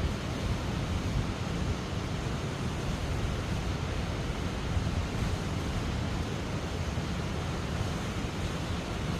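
Steady roar of a waterfall's falling water, with a heavy low rumble that suggests wind buffeting the microphone.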